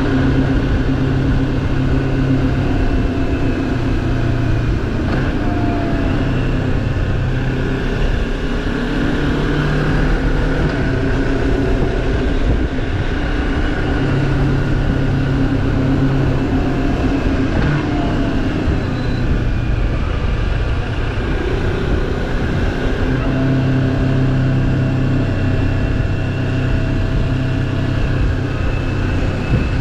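Moto Morini X-Cape 650's parallel-twin engine running at steady road speed, its pitch rising and falling a little with the throttle, over a constant rush of wind noise.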